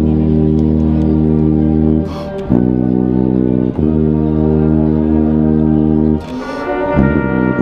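Tuba played right at the microphone, holding long low notes with short breaks about two seconds in and near four seconds, and a change of notes about six seconds in, with the marching band's brass playing along.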